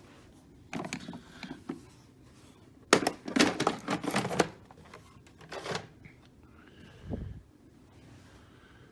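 Hard plastic clicking and rattling from the dust bin of a Hoover WindTunnel bagless upright vacuum being handled, with a dense run of clattering about three seconds in and a dull thump near the end.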